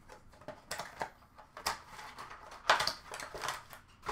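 Hockey trading cards and their packaging being handled: a run of irregular clicks, taps and rustles, the sharpest about two-thirds of the way through.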